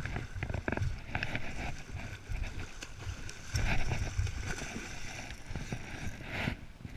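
River water noise with a low, uneven rumble.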